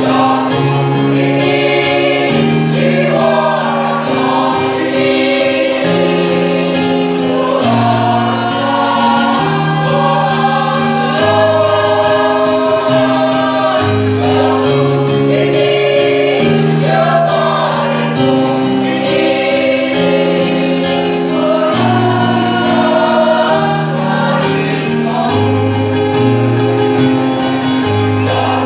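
A choir singing a song in several parts, with sustained low notes moving beneath the melody every second or two.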